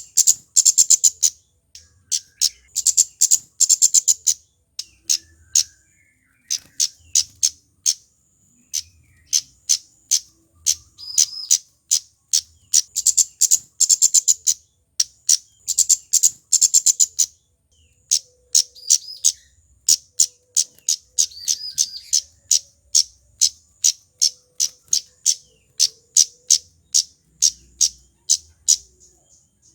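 Male kemade flowerpecker (burung cabe-cabean) calling: very short, sharp, high-pitched notes in fast runs of several a second, with short pauses between the runs.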